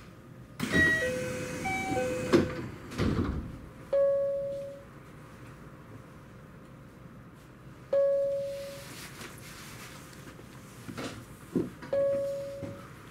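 Electronic chime at a train's station stop. About half a second in, a short four-note chime sounds over a burst of noise with a couple of knocks. Then a single chime tone rings every four seconds, each fading out over about a second.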